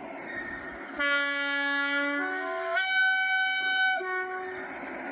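Railway locomotive horn sounding a run of held notes, starting about a second in: a low note, then a higher one, then back to a middle note, about three and a half seconds in all, over a faint steady rumble.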